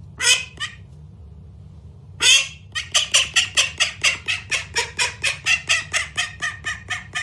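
Duck quacking: two short quacks, then after a pause a longer quack followed by a fast, even run of quacks, about five a second.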